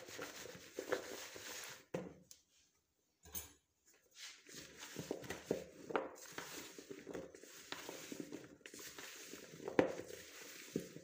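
Silicone spatula stirring raw potato sticks in seasoned flour in a bowl: soft, irregular scraping and light clicking of the strips against the bowl and each other. It drops to near silence for about two seconds shortly after the start.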